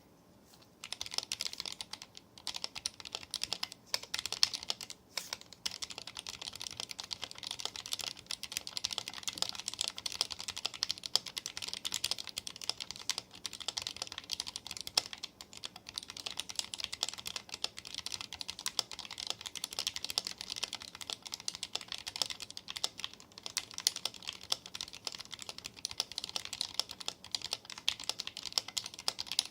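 Mechanical keyboard with lubed Gateron optical silver linear switches being typed on fast and without a break, a dense run of keystroke clacks that starts about a second in.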